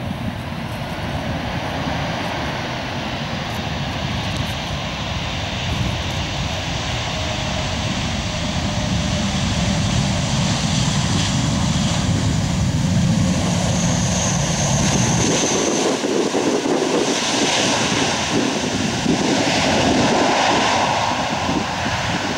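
Jet engines of an Airbus A340-300 airliner running during its landing rollout, a continuous rushing roar that grows steadily louder as the four-engined jet rolls past.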